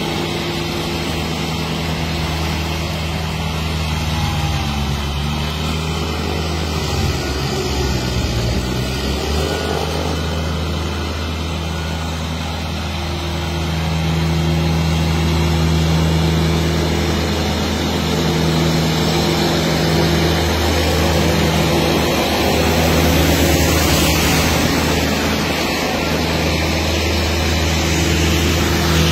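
Massey Ferguson GC1700-series sub-compact tractor engine running steadily while driving its front-mounted snow blower. The engine's pitch wavers briefly about a quarter of the way in, then steadies.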